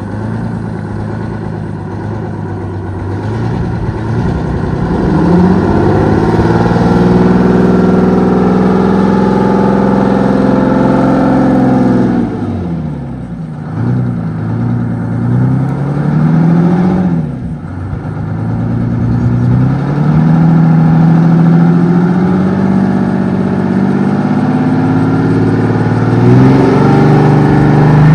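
The supercharged 12V71 V12 two-stroke Detroit Diesel of a Wabco Haulpak dump truck running hard, its pitch climbing and holding high. The pitch drops away twice in the middle and climbs again each time, then rises once more near the end.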